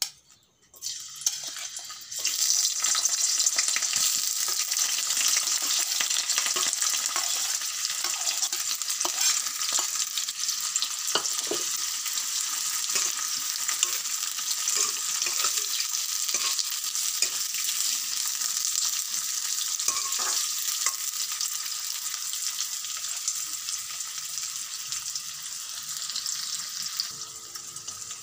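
Sliced onions dropped into hot oil in a metal kadai, sizzling loudly from about two seconds in as the oil spits around them. A metal spatula stirring them scrapes and knocks against the pan now and then. The sizzle eases a little near the end.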